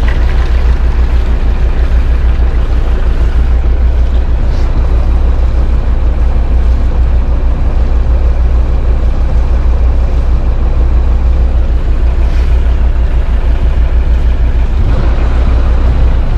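Towboat's engine running steadily, a loud low rumble with a rushing noise over it.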